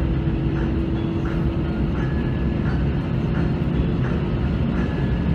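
Airbus A320 cabin noise while taxiing: a steady low rumble from the engines and rolling gear, with a steady hum that stops about four and a half seconds in.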